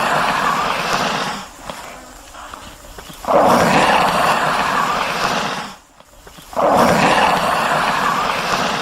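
A large animal giving three long, rough, drawn-out calls, each about two seconds, with short pauses between them.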